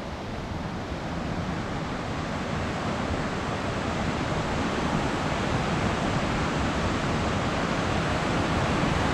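Fast-flowing floodwater of the swollen River Esk rushing in a steady roar of noise, mixed with wind, growing gradually louder.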